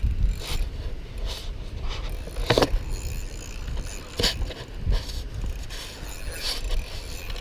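Fishing reel and rod being worked while fighting a fish: irregular scrapes and clicks, with a low rumble of wind on the microphone.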